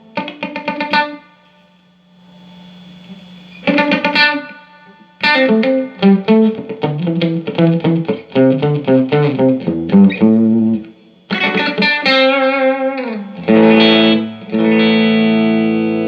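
Electric guitar played through a Mesa/Boogie Dual Caliber DC-3 amp on a test after its repair: quick single-note runs and a chord, a string bend about twelve seconds in, then a long held chord ringing out to the end.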